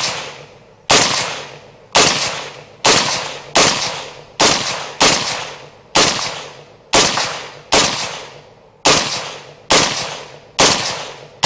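Suppressed K1A 5.56 mm carbine fired in single shots through a vortex-type suppressor, about a dozen shots at roughly one a second, each followed by a long echoing tail.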